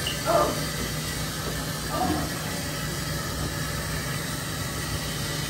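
Steady hiss of running water, with a low steady hum under it and two faint short sounds, one near the start and one about two seconds in.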